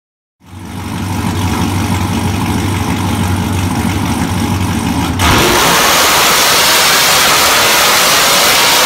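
Supercharged, cammed 2017 Chevrolet Silverado engine on a chassis dyno: it idles from about half a second in, then at about five seconds in goes abruptly to a full-throttle pull, louder, with its pitch rising steadily.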